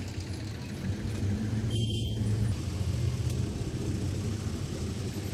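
Street traffic: a low, steady rumble of a nearby motor vehicle engine.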